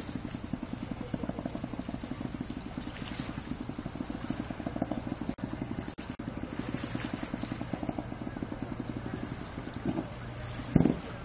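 An engine running steadily with an even, fast low chugging, and a single firework boom near the end.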